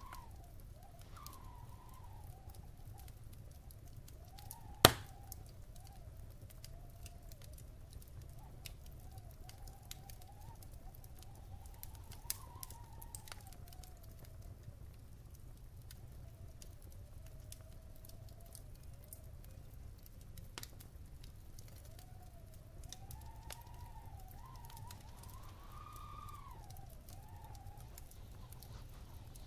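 Wood fire crackling in a fireplace, with scattered small pops and one loud sharp pop about five seconds in, over a low steady rumble. A faint wavering whine rises and falls behind it.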